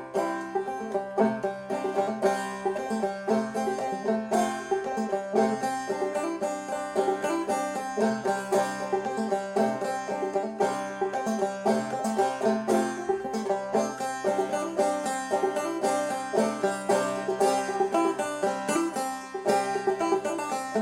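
Five-string banjo played clawhammer style, a brisk run of plucked notes with a steady, driving rhythm.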